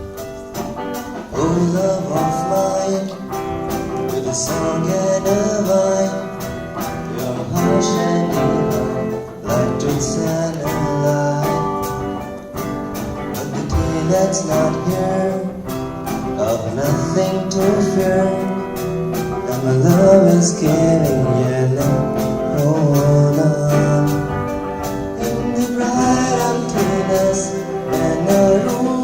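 Music: a song passage led by guitar over a steady, evenly spaced beat.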